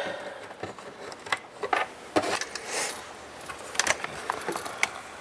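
Scattered light clicks and knocks of a USB cable being handled and plugged into an Arduino board, a handful of separate taps spread irregularly with a short rustle near the middle.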